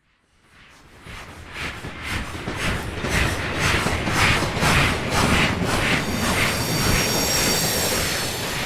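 Steam locomotive approaching from silence and passing, its exhaust chuffing rhythmically at about three beats a second and growing louder. Around two-thirds of the way through, the chuffs blend into a steady rushing hiss with a thin, high ringing over it.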